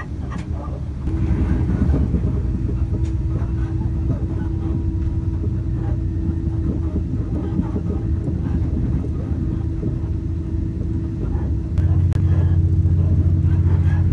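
Cabin rumble of an Xplorer diesel railcar running along the line: a steady low rumble of engine and wheels with a steady hum over it. The low rumble grows louder near the end.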